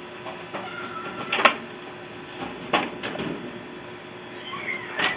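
Two sharp metallic knocks about a second and a half apart, among lighter clicks, from handling tools and parts while dismantling a microwave oven.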